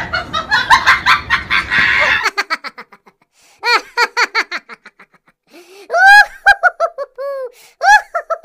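Laughter in several bursts of quick, rhythmic ha-ha pulses. Before it, for about the first two seconds, a loud, dense noise with rapid sharp cracks runs on and then stops.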